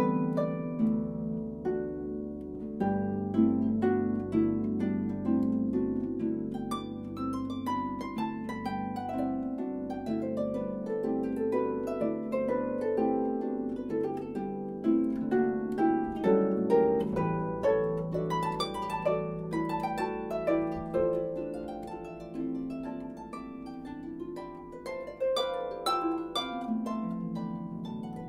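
Solo concert pedal harp playing a continuous passage of plucked notes that ring over one another, with a descending run of notes near the end.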